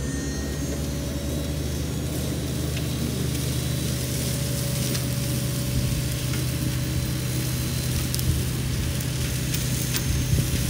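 Sany SY50U mini excavator's diesel engine running steadily, driving a Mongo hydraulic flail mulcher, with a constant crackling hiss of brush being shredded and a few sharp knocks.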